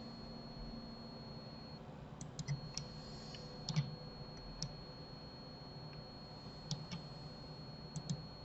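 Quiet, irregular clicks of a computer mouse and keyboard, about a dozen from about two seconds in, over a faint steady electrical hum.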